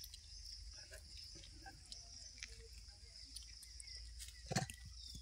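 Faint wet clicks and smacks of a young rhesus macaque sucking milk from a plastic baby bottle, over a steady high hiss. A louder short smack comes about four and a half seconds in.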